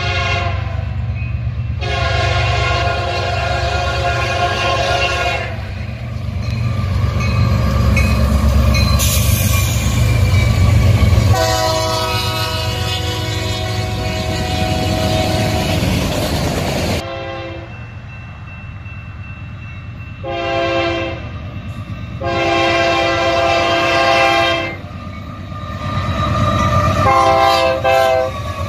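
Union Pacific diesel locomotive's air horn sounding the grade-crossing signal: two long blasts, a short one and another long one, then a couple of short toots near the end. Beneath it runs the steady rumble of the locomotives and rolling freight cars passing.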